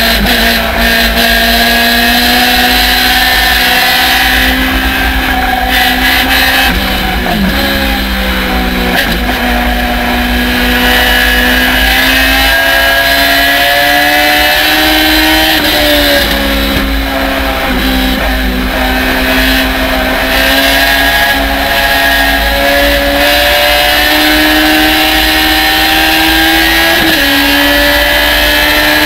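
Onboard sound of a Thunder Roadster race car's engine pulling at racing speed, with wind rush in the open cockpit. The engine note climbs steadily, dips briefly for a corner, and drops sharply with an upshift about halfway through and another near the end.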